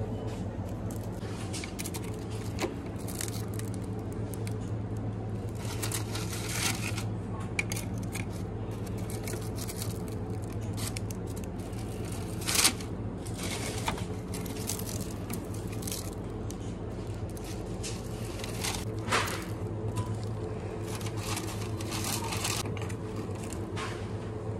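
Paper bakery bag rustling and crinkling in short bursts as pastries are picked up with tongs, with a few sharp clicks, the loudest about halfway through. A steady low hum runs underneath.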